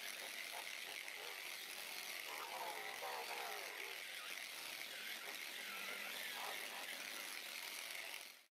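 Handheld electric polisher with a foam pad running steadily as it buffs the cured epoxy resin surface, a steady whine over a rushing hiss, with the pitch wavering as the pad is pressed and moved; it cuts off suddenly just before the end.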